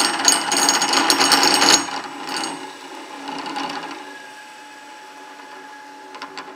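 Tool-and-cutter grinder running with a loud, rapid mechanical clatter for about two seconds, then fading away as it winds down to a low steady hum. The grinding wheel is loose on its spindle and needs tightening.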